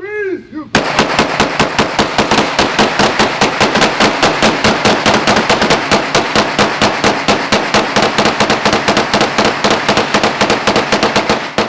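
A firearm fired rapidly at a shooting range: a long, unbroken string of shots, several a second, for about ten seconds, stopping abruptly near the end.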